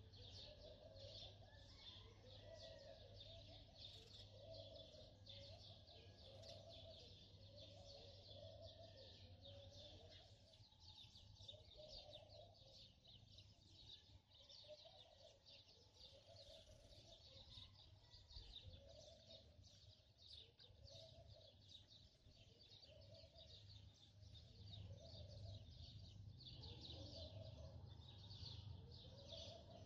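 Faint birdsong: dense high chirping throughout, with a lower call repeating roughly every second or so, over a faint low hum.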